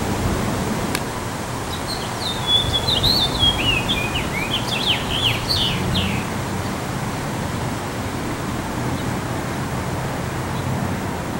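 Male house finch singing one warbled song of about four seconds, starting about two seconds in: a quick jumble of high chirping notes that ends in a few sharp down-slurred notes, over a steady background hiss.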